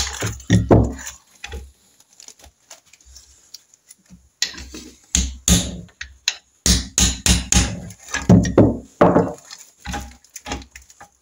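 Metal-on-wood knocks as a mallet's wooden handle taps a Norton Commando connecting rod's big end cap loose in the first second. After a short lull, irregular clunks and knocks follow from about four seconds in, as the mallet and the crankshaft parts are handled on the bench.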